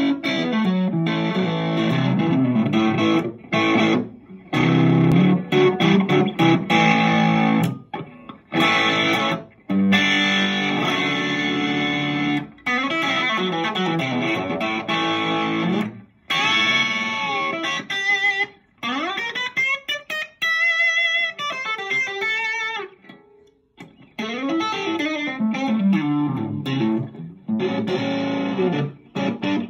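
Les Paul-style electric guitar played through a Vox AC15 valve amp: chords and phrases with short gaps between them. About two-thirds of the way in, one note is bent up, held with vibrato, and allowed to die away.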